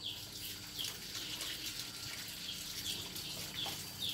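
Tap water running into a plastic basin of mangoes as they are washed, with a bird giving short, falling chirps about twice a second.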